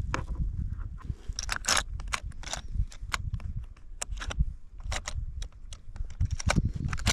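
Metal hooks and jig heads clicking and rattling against the hard plastic compartments of an open tackle box as fingers sort through them: many irregular sharp clicks over a low rumble.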